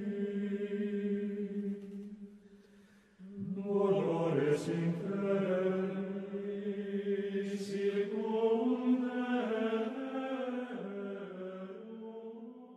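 Gregorian chant sung in Latin, in long sustained notes: one phrase dies away, and about three seconds in a new phrase begins, then fades near the end.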